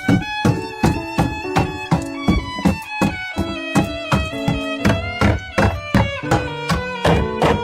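Background music: a violin melody over a steady percussive beat.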